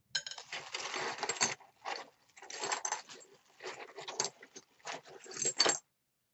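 Plastic bag crinkling as a hand rummages through the broken shards of a crushed ceramic coffee cup inside it, the pieces clinking against each other in irregular bursts that stop near the end.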